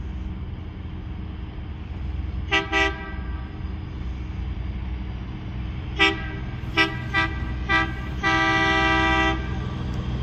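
Horn toots from a rail maintenance-of-way vehicle moving along the track through a grade crossing: two quick toots about two and a half seconds in, four short toots a few seconds later, then one longer blast of about a second. A low engine rumble underneath.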